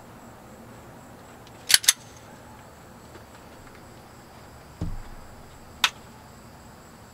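Sig Sauer P365 trigger being pulled dry: two sharp mechanical clicks close together about two seconds in, then a single click near six seconds. A dull, low thump comes shortly before the last click.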